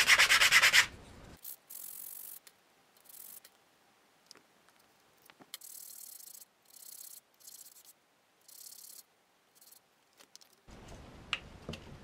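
A small wooden part rubbed by hand on a sanding sponge to shorten it: a quick run of rapid strokes in the first second, then fainter, shorter bouts of sanding with pauses between them.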